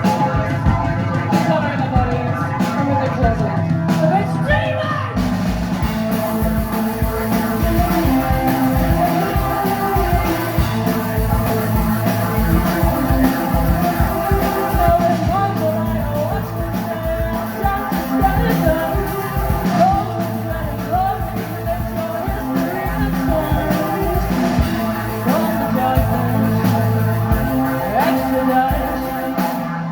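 Rock band playing live, with singing over drums and guitars.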